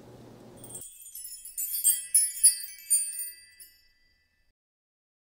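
Tinkling, chime-like magic sparkle sound effect: a flurry of high bell-like notes that starts about a second in and fades away about three seconds later.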